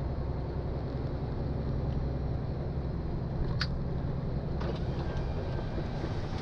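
MAN heavy truck's diesel engine and road noise heard from inside the cab while cruising, a steady low drone. A single sharp click sounds about three and a half seconds in, with a couple of faint ticks a second later.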